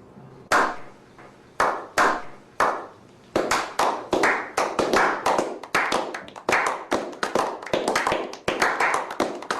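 A series of sharp hand slaps, each with a short ringing tail. They come about a second apart at first, then quicken to two or three a second after about three seconds.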